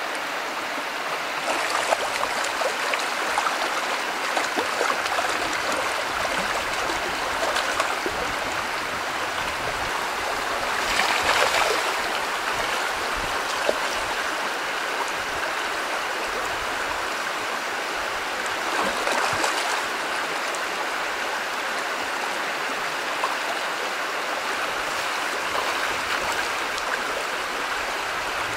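Shallow, stony stream rushing and gurgling steadily, with salmon splashing as they fight upstream through the riffles. The splashing swells louder several times, most strongly about eleven seconds in and again near twenty seconds.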